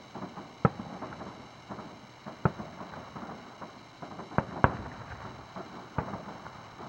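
Fireworks going off: about five sharp booms of aerial shells bursting, the loudest a little under a second in and just before five seconds, over a steady patter of small crackling pops.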